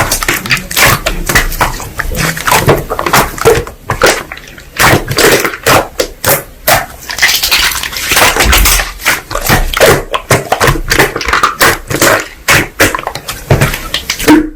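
Slime being squeezed, poked and pressed by hand, giving a rapid, irregular run of wet squelches, clicks and small air-bubble pops.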